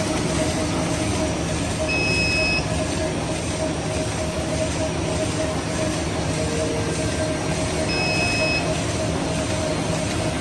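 Disposable cutlery packing machine running with a steady mechanical noise and a constant hum. Two short high beeps come about six seconds apart.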